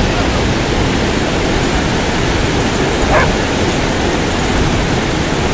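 Loud, steady rushing of ocean surf and wind at the beach, with one short dog yip about three seconds in.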